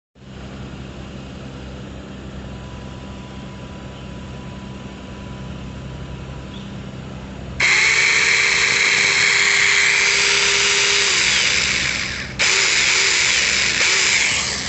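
Ladderman LDM100 mini chainsaw running with a low steady hum. About halfway in it turns much louder and harsher for about five seconds, stops for a moment, then runs loud again for about two seconds.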